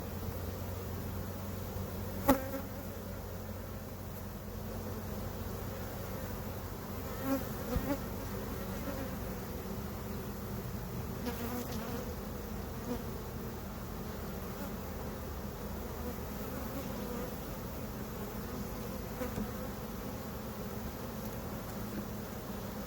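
Honey bees buzzing steadily in a low hum as a nuc hive is being closed up. A sharp knock about two seconds in and a few softer knocks a few seconds later.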